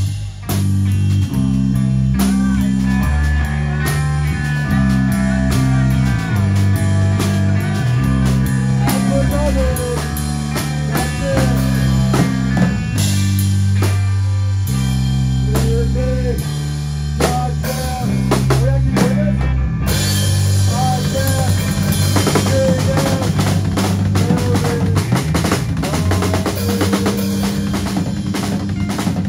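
Live band playing loud rock music: drum kit hitting hard under stepping bass notes, with bending pitched lines above. The band comes in suddenly at the start, and the cymbals grow denser about two-thirds of the way through.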